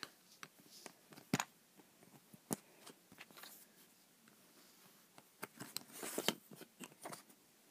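Plastic Lego pieces clicking and knocking as they are handled and fitted together: scattered sharp clicks, with a cluster of them around five to six seconds in.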